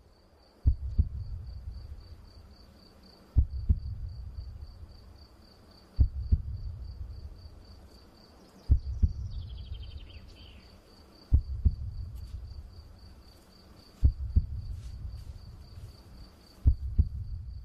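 A cricket trilling steadily, with a deep thud that fades away repeating about every two and a half seconds, and one short descending bird call about halfway through.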